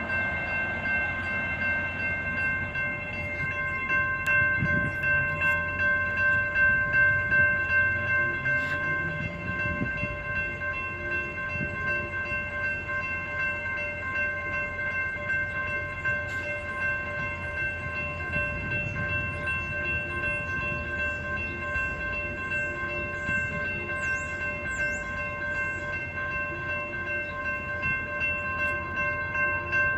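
Railroad grade-crossing warning bell ringing continuously, its clanging tones steady throughout, over the low rumble of a slow-moving Union Pacific freight train that swells a few seconds in.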